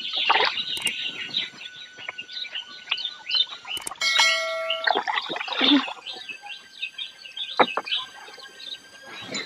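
Many small birds chirping continuously. A couple of sharp clicks and a short electronic chime about four seconds in, the sound effect of an on-screen subscribe-button animation.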